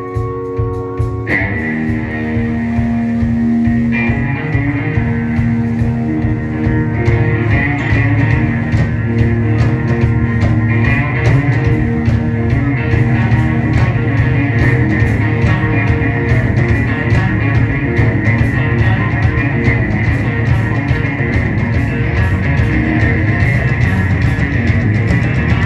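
Live electric guitar solo on a Stratocaster-style guitar over bass and drums in a blues-rock style: long held notes in the first several seconds, then busier, denser playing.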